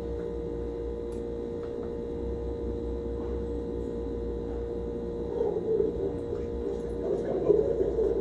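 A steady hum with a low rumble beneath it. Faint, irregular sounds join about five seconds in and again near the end.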